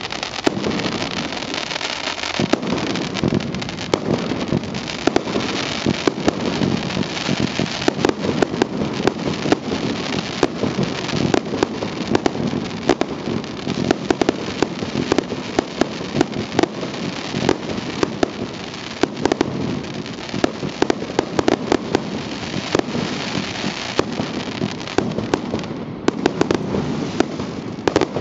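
Aerial fireworks going off in a continuous barrage: rapid, densely packed bangs of shells and stars bursting, over steady crackling.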